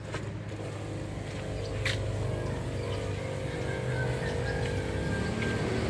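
A small motor running with a steady low hum and a faint high whine, with a single sharp click about two seconds in.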